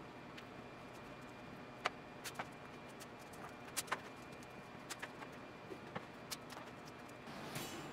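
Scattered light knocks and clicks of a veneered board being lifted and handled on a wooden workbench, over a faint steady hum. There is a brief rustle near the end.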